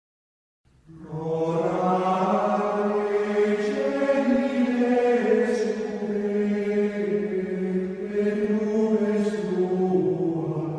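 A slow sung chant with long held notes, coming in about a second in.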